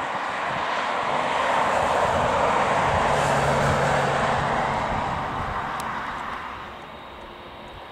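Boeing 747-8F freighter's four GEnx-2B turbofans at taxi power as it taxis past: a broad jet rush that swells over the first couple of seconds and fades in the last few, with a low steady hum in the middle.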